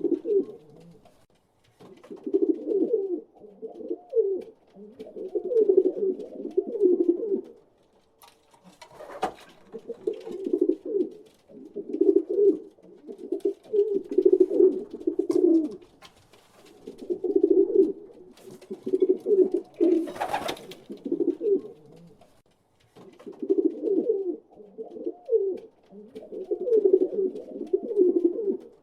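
Pigeons cooing: a run of low, repeated coos in phrases of a few seconds with short pauses between them. Two brief noises, about nine and twenty seconds in, break in.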